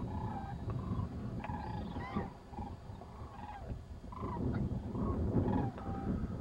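A flock of sandhill cranes calling in flight: many short, overlapping calls, over a steady low rumble.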